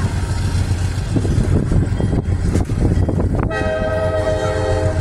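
Steady rumble of the excursion train rolling along, heard from aboard; about three and a half seconds in the diesel locomotive's air horn starts sounding, one chord held steady.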